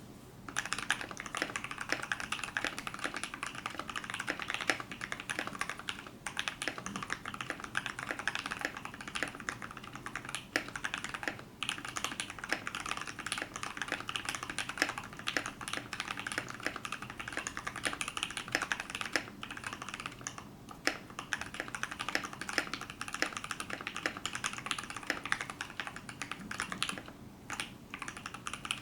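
Fast, continuous typing on a custom mechanical keyboard: 62 g Tangerine linear switches, lubed with 205g0 and filmed, on a brass plate in an acrylic Tofu65 case. There are a few brief pauses.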